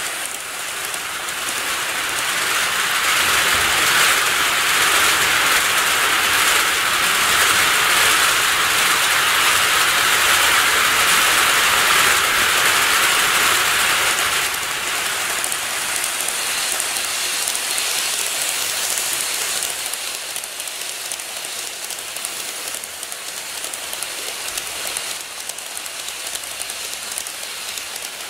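KATO model trains running on the layout's track: a steady rushing noise of wheels and motor as a 185 series model passes close by. About halfway through it drops to a quieter, steady running noise.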